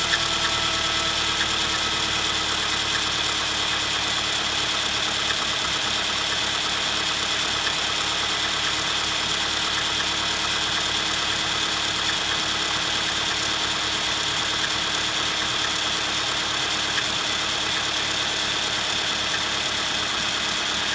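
Suzuki Grand Vitara 2.0-litre four-cylinder petrol engine idling steadily after a cold start. The owner is asking whether a knock he hears from it on cold starts is a fault.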